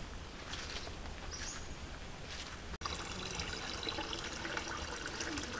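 A few soft footsteps through grass and brush, then, after a cut, water trickling and lapping in a plastic basin holding freshly gathered mountain snails.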